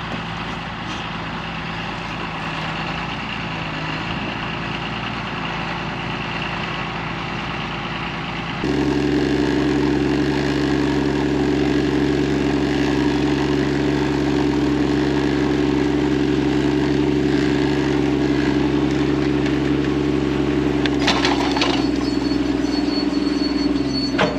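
Large diesel tractor engine running steadily under load while it pulls a tile plow through the field. The engine note gets much louder and closer about 9 s in. There is a short rattle of clicks near 21 s.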